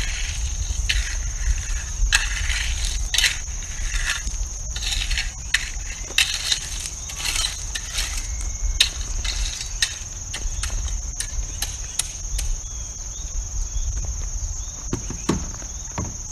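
Gravel crunching and scraping as it is worked by hand tools, in irregular strokes that thin out after about ten seconds, over a steady high-pitched insect buzz.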